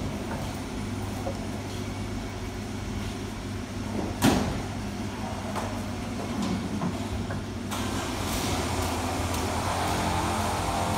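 A steady low hum from a running motor, with one sharp knock about four seconds in. A hissing rush joins near eight seconds.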